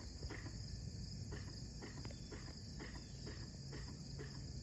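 Evening insect chorus: crickets trilling steadily and high-pitched, with irregular faint clicks over a low rumble.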